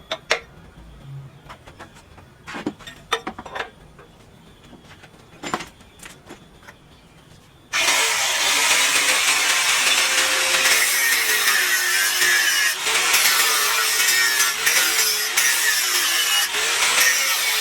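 Scattered knocks and clanks, then a power tool starts abruptly about halfway through and runs loudly, its pitch wavering as if under load.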